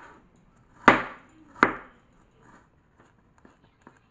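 Kitchen knife slicing shallots and garlic on a plastic cutting board: two sharp chops about a second in, under a second apart, then a few faint taps of the blade.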